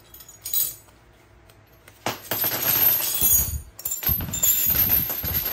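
Steel spanners clinking and clattering against one another as a bundle of them is handled, starting about two seconds in.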